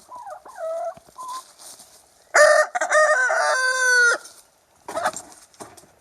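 A rooster crows once, loud, for about two seconds, the call ending on a long held note. Softer chicken calls come before it in the first second, and a short noisy burst follows near the end.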